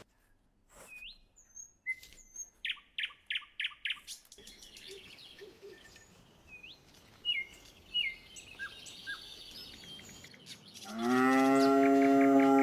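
Small birds chirping in short rising notes and a quick run of chirps. Near the end a cow starts a long, loud moo.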